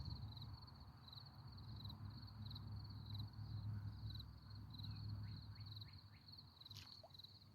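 Insects trilling steadily in a fast pulsing rhythm over a low rumble, with a few faint short chirps past the middle and a single sharp click near the end.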